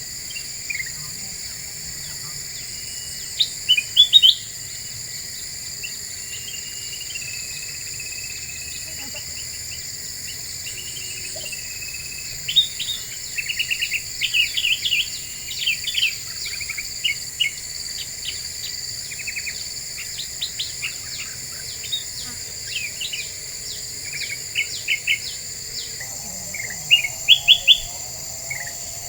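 Kutilang emas bulbul calling: bursts of sharp, quick chirps and short whistled phrases. Under them runs a steady high-pitched insect drone.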